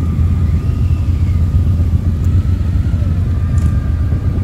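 Motorcycle engine running steadily, picked up close from the bike itself.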